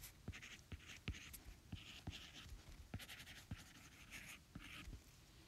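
Apple Pencil writing on an iPad's glass screen: faint sharp taps of the plastic tip and short scratchy strokes as a word is handwritten, stopping shortly before the end.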